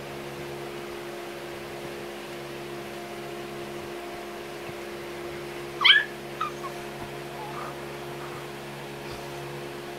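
Rottweiler puppy giving one sharp, rising yelp about six seconds in, followed by a few fainter short squeaks, during rough play. A steady hum runs underneath.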